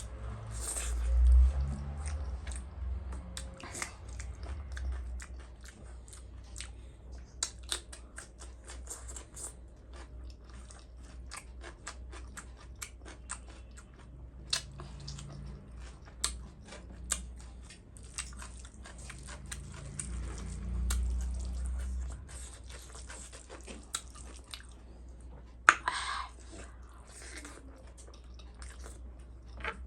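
Close-up chewing and biting of a person eating fried pork, with many small wet clicks and crunches. There is a low bump about a second in and a single sharp crack near the end.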